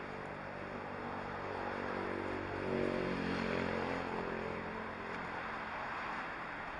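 Road traffic passing close by, with one motor vehicle's engine swelling up and fading away over a couple of seconds near the middle, over a steady traffic hiss.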